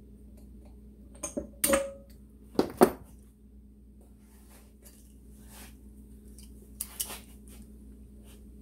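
Hammer tapping on metal as a piston pin is driven out of a Moto Guzzi piston without heat: sharp metallic clinks in pairs, one ringing briefly, the loudest about three seconds in, then two lighter taps about seven seconds in.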